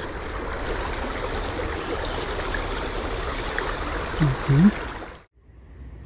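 Water of a small stream running steadily, cutting off abruptly about five seconds in.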